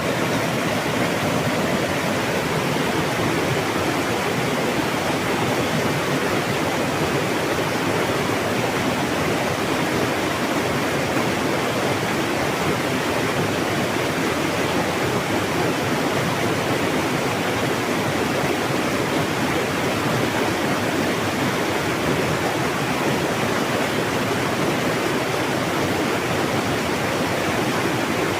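Mountain water rushing steadily over rocks, an even, unbroken rush of flowing water.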